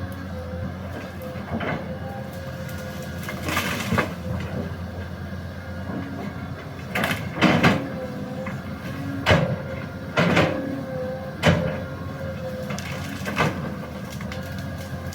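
Excavator's diesel engine running steadily while the machine works, with about nine loud knocks and bangs at irregular intervals, the loudest about seven and a half, nine and eleven and a half seconds in.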